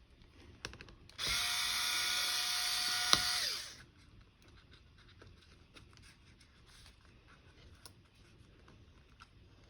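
Small electric screwdriver running for about two and a half seconds, backing out a laptop battery screw, its motor whine winding down as it stops. Faint small clicks of handling follow.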